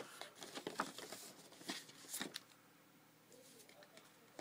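Paper leaflets and cardboard packaging being handled, a quick run of rustles and crackles over the first couple of seconds, then quieter.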